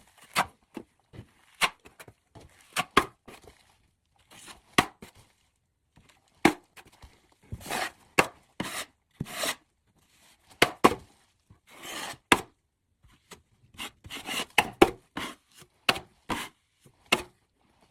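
Hand tools working on a drywall joint: irregular short scraping strokes and sharp taps, spaced unevenly with brief pauses between them.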